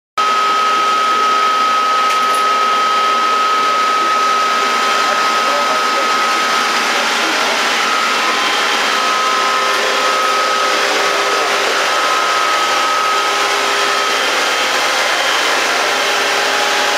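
Steady machinery noise of a yacht engine room: a loud, even rushing hiss with a constant high whine over it and no change throughout.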